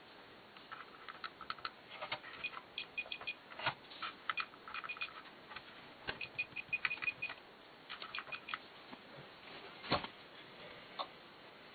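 Push buttons on a Toyota climate-control panel being pressed in quick succession: runs of short, light plastic clicks with high ticks, and a couple of louder knocks.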